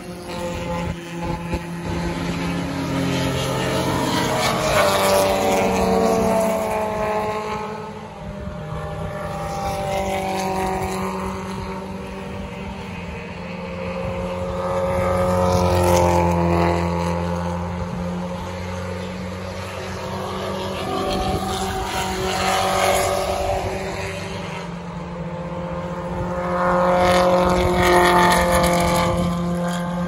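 Vintage Alfa Romeo race cars running at racing speed through a corner one after another. Their engine notes rise and fall in pitch and swell as each car passes, loudest about five, sixteen and twenty-eight seconds in.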